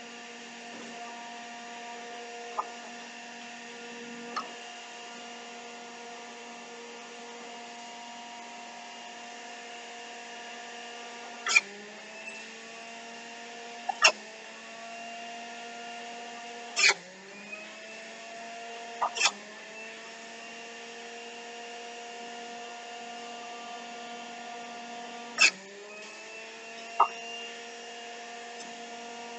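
Electric juicer motor running with a steady hum. Several sharp knocks come as pieces of produce are pushed down the feed chute, and each time the motor's pitch dips under the load and then climbs back.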